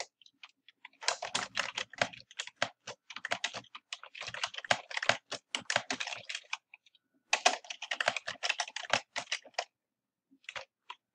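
Typing on a computer keyboard: fast runs of keystrokes broken by short pauses, then a few last taps near the end.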